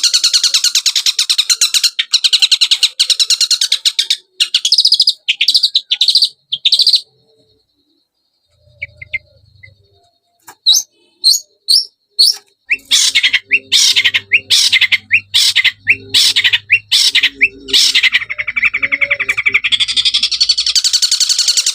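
Long-tailed shrike (cendet) song played as a lure: harsh, very fast buzzy chattering in long runs. About seven seconds in it stops almost to silence, comes back as short separate notes, then breaks into the dense chattering again.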